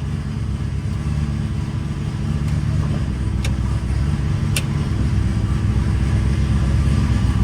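Freshly rebuilt 402ci LS V8 engine running steadily, a little louder toward the end, with two sharp clicks about a second apart midway through.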